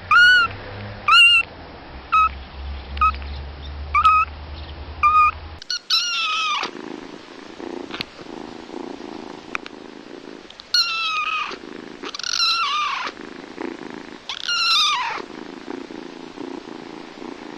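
Young kittens mewing: first short, high mews about once a second, then, after a cut, four longer meows that fall in pitch. A steady low purr runs between the longer meows.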